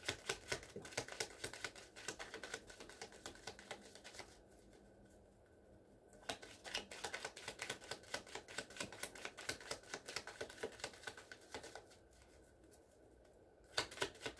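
A tarot deck shuffled by hand: faint, rapid clicking and flicking of cards, stopping twice for a couple of seconds before carrying on.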